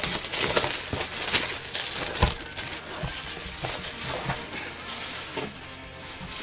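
Plastic shrink-wrap crinkling and crackling as a wrapped box of trading cards is handled close to the microphone, with irregular sharp crackles that ease off about five seconds in.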